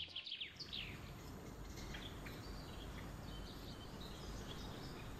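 Faint steady background ambience, with a few faint bird chirps falling in pitch about half a second in.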